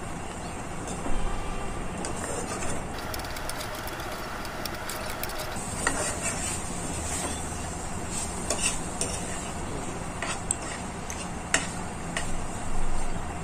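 Chicken and onion filling sizzling in a non-stick frying pan while a spatula stirs and scrapes through it. The spatula clicks and knocks against the pan, with a louder scrape near the end.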